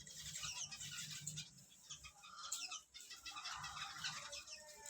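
Many small cage birds chirping and twittering together in a dense, overlapping chatter, over a low hum.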